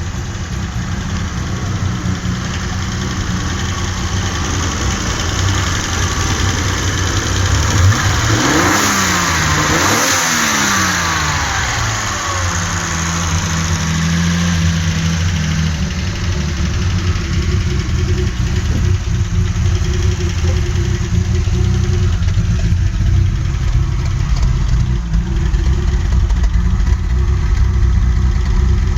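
1984 Alpina B6 2.8's M30 straight-six engine running with a misfire, idling steadily and revved up and back down once about a third of the way in.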